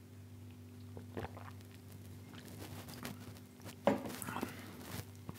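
A man drinking water from a glass, quiet gulping, over a faint steady hum in the room. About four seconds in there is a short knock, the glass being set down.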